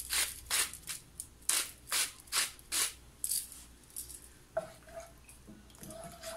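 Salt rubbed between fingertips into a pot of warm milk, a quick run of dry, crackly strokes about two or three a second. After that, a wooden spoon stirs the liquid in the pot.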